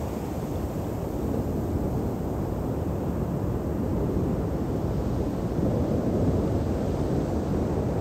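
Pacific Ocean surf: breaking waves and foamy wash running up the beach, a steady low rumble that swells and eases a little.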